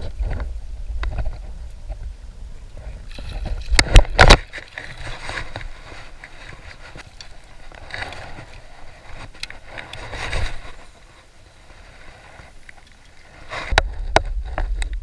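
Wind buffeting the microphone on an open boat, with water sloshing and a cluster of sharp knocks about four seconds in.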